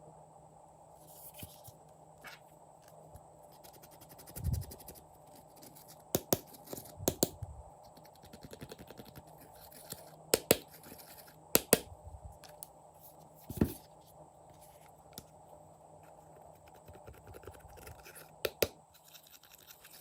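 Slime being kneaded and stretched by hand: soft sticky scratching with a string of sharp clicks and pops scattered through.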